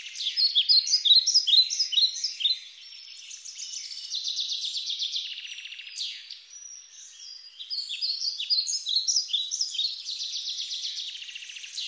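Songbirds singing in a chorus, many overlapping rapid trills and short falling chirps, all high-pitched, with nothing low underneath.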